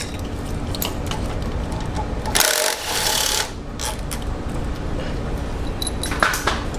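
Power ratchet running steadily as it backs out the bolts of a brake vacuum pump on a 2.4 Multiair engine, with a louder burst of hissing noise about two and a half seconds in that lasts about a second.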